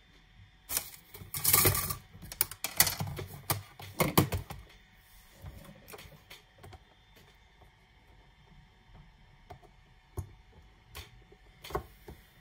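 Plastic clicks and rattles of a DJI Mavic Air's folding arms and propeller blades being handled and unfolded, a dense run in the first few seconds, then a few single clicks near the end.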